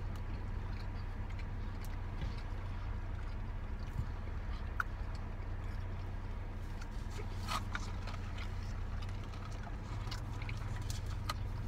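Steady low hum of a car cabin, with a few faint chewing and mouth clicks now and then.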